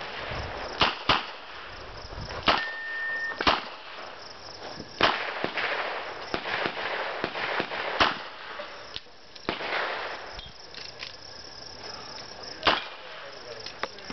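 Smith & Wesson Model 625 revolver fired in a stage string: sharp single shots at uneven intervals, some about a second apart and others with pauses of several seconds between them.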